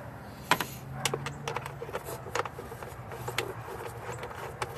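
Irregular clicks and light knocks of a gloved hand and tools handling the plastic engine cover of a Toyota Yaris, with one sharper knock about half a second in, over a low steady hum.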